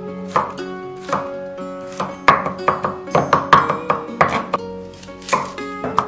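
Santoku knife chopping and mincing garlic cloves on a wooden cutting board: a run of quick knocks of the blade on the wood, quickest in the middle, with red onion being chopped near the end. Background music plays throughout.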